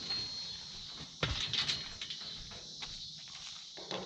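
Insects chirring faintly in the background, with one sharp knock about a second in and a few lighter clicks after it.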